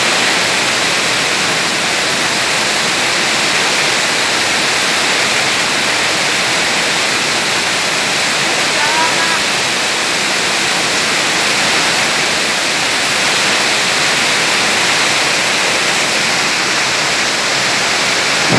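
Heavy rain falling on a paved street, a steady, even hiss without letup.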